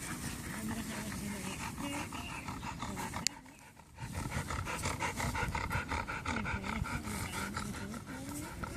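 Dog panting rapidly, with a brief quieter lull about three seconds in.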